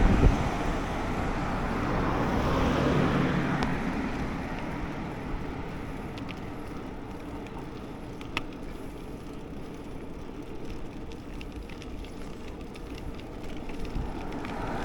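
Traffic and wind noise heard while riding along a road: a steady rushing haze that is loudest at the start and slowly fades, with a passing vehicle's low hum a few seconds in. A single sharp click comes about eight seconds in.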